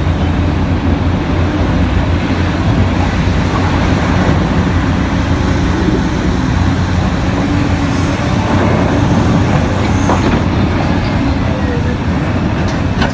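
Heavy mining machinery at work: a large diesel engine running steadily under load, a continuous low drone with mechanical noise over it.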